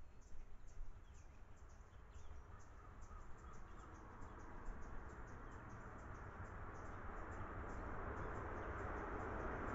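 Faint high chirps come quickly and irregularly, while from about halfway a low engine noise swells steadily louder toward the end.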